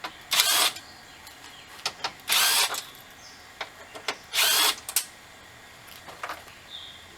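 Power drill-driver spinning out the small bolts along the top of a truck grille, in three short bursts about two seconds apart, with small clicks in between.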